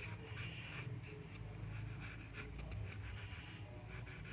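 Drawing strokes, a pen or pencil scratching and rubbing in short, irregular strokes, over a low steady hum.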